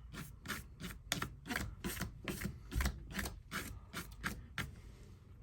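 Quick rubbing strokes across a work surface, about four a second, sweeping crumbs away; they stop shortly before the end.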